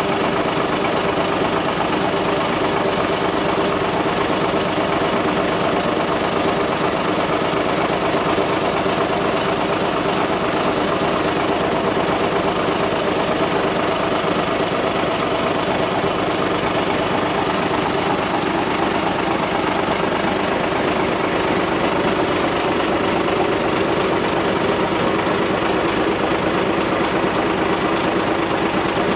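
Narrow-gauge diesel locomotive's engine idling steadily at close range, an even, unchanging drone.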